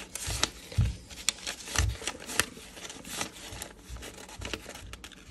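A stack of paper one-dollar bills counted by hand: crisp rustles and snaps as each note is flicked off the stack, several a second at an uneven pace, with a few dull bumps from the handling.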